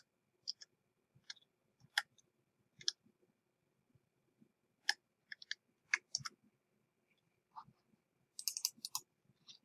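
Faint, scattered single clicks from a computer keyboard and mouse, with a quick run of typing keystrokes near the end.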